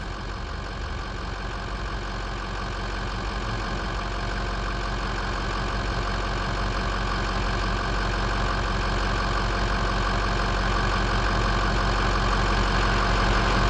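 Ford 6.0L Power Stroke V8 turbo-diesel running steadily on a road test, growing gradually louder. With new injectors fitted, it runs without the earlier rough running.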